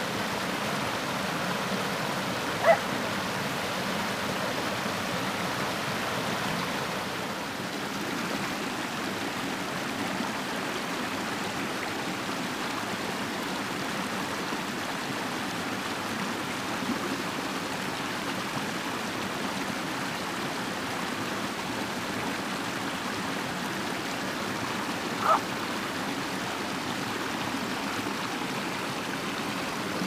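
Creek water rushing steadily over rock ledges and small cascades. Two brief sharp sounds stand out, one a few seconds in and one near the end.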